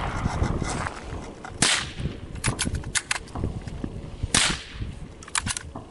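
Two shots from a .22 Long Rifle rifle, a little under three seconds apart: short, sharp cracks. A few fainter sharp clicks come between and after the shots.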